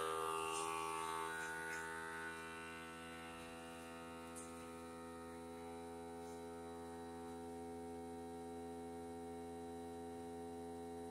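FoodSaver vacuum sealer's pump running steadily with a hum, drawing the air out of a mason jar through the hose and jar-sealer attachment. It eases slightly quieter over the first couple of seconds, then holds steady.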